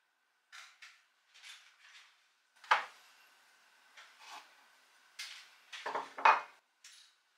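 Ceramic mugs clinking and knocking against each other and the cupboard shelf as they are moved and lifted out: a series of light knocks, with two louder clinks about three and six seconds in.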